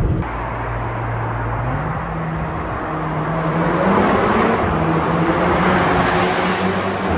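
Seat Leon Cupra 290's 2.0 TSI turbocharged four-cylinder on its stock exhaust, running at a steady note while driving; the pitch steps up slightly about two seconds in. A rush of road and wind noise swells in the middle and eases toward the end.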